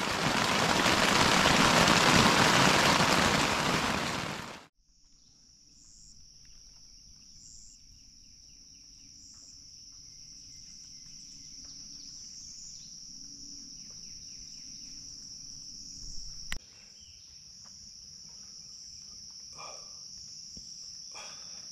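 Heavy rain falling on a tent's rain fly, heard from inside the tent, which cuts off suddenly about five seconds in. After that comes a steady, high-pitched chorus of insects in the forest, with a few faint chirps and a single click.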